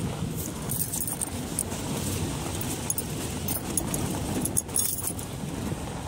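Open safari jeep driving: a steady low engine and road rumble, with light rattling and clinking from the vehicle.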